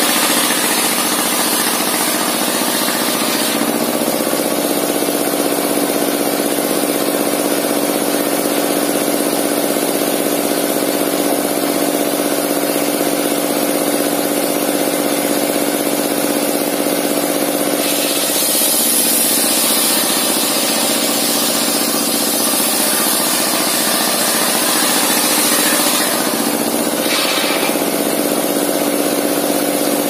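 Sawmill's large circular saw running steadily under power, with a steady hum. A high hiss from the blade cutting through a timber board comes in the first few seconds and again for about eight seconds past the middle.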